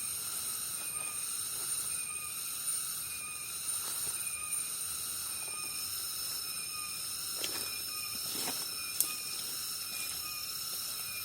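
Insect chorus: a steady layered high-pitched buzz of several insects calling at once, with a short chirp repeating regularly underneath and a single sharp click about nine seconds in.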